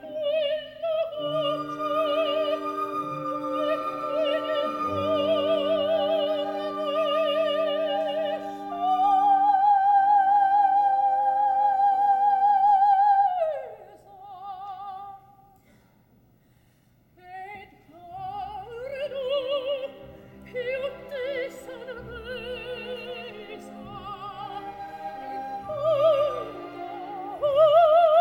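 Operatic soprano singing with a wide vibrato over held orchestral chords. About nine seconds in, a long high note slides down and breaks off. After a brief near-silent pause the voice resumes in short phrases with the orchestra.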